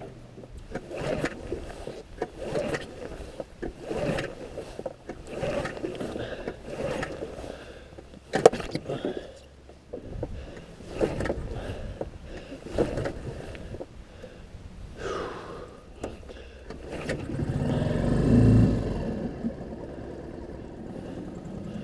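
Small tiller outboard motor being pull-started cold: the recoil starter cord is yanked again and again, a short scraping pull every second or two, and near the end comes a louder, lower rumble lasting about two seconds.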